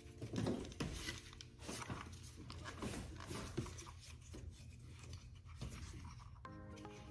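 Faint, irregular rubbing and scraping handling noises over a steady low hum. A few background music notes come in near the end.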